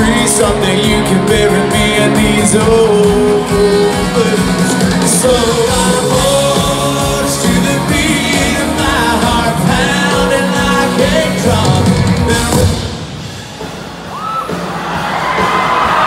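Live country band, with electric guitars, drums and a singing voice, playing loudly, heard through a large hall; the music comes to an end about 13 seconds in and gives way to crowd yells, whoops and whistles.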